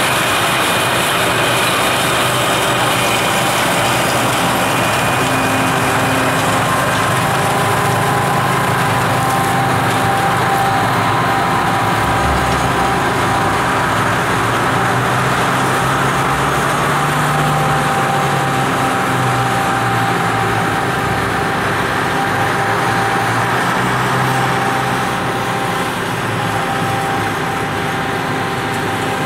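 Rotary railway snow blower (RhB Xrotmt 95403) at work clearing the track, its machinery running as a loud, steady mechanical noise while it throws snow. It gets a little quieter near the end.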